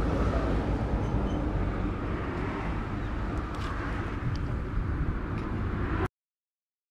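Steady, low rumbling outdoor background noise with a few faint clicks, cutting off abruptly to silence about six seconds in.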